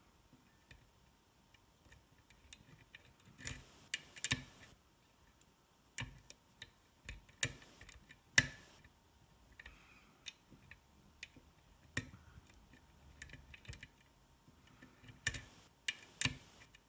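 Metal lock pick and tension wrench working the pins of a DOM S cylinder lock with spool pins: irregular sharp metallic clicks, some in quick pairs, over faint scraping. These are pins setting and spools giving click feedback under tension.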